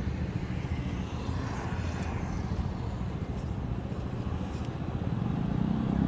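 Street traffic: a steady low rumble of vehicles, with an engine accelerating and rising in pitch near the end.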